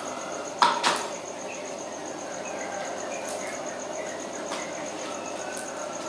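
A cricket trilling steadily, a rapid high-pitched pulsing. Two sharp knocks come close together just under a second in.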